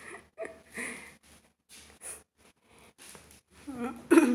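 A person breathing and laughing softly close to the microphone in short puffs, with a brief louder vocal sound near the end.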